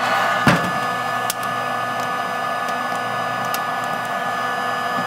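Steady whir of a modified George Foreman rotisserie coffee roaster running with a heat gun blowing in as a convection blower, with a thump about half a second in. A few sharp cracks sound over the whir: the coffee beans beginning first crack.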